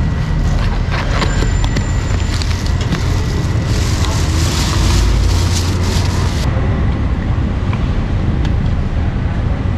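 Busy street-market traffic noise: a steady engine rumble from passing vehicles, with scattered sharp knocks. A louder hiss swells from about three and a half seconds in and cuts off suddenly about three seconds later.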